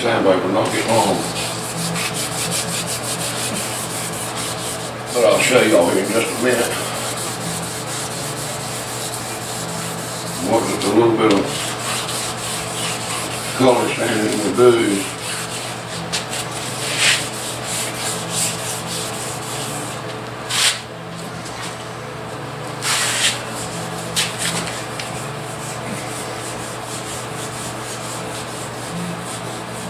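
Sandpaper rubbed by hand over a freshly painted truck door, color sanding Rust-Oleum paint to knock down orange peel. It is a steady scratchy rubbing that swells louder four times in the first half, with a few short sharp scrapes later.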